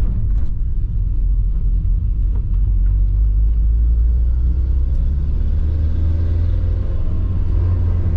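Nissan 240SX's KA24E four-cylinder engine and road noise on a drive: a steady low rumble, with the engine note rising a little in the second half.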